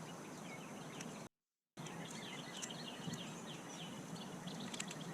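Small birds chirping over a steady outdoor background hiss, the chirps quick and many, thickest in the middle. All sound cuts out for about half a second around a second and a half in.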